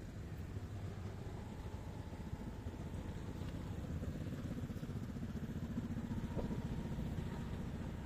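Motorcycle engines idling and running in street traffic, a steady low rumble.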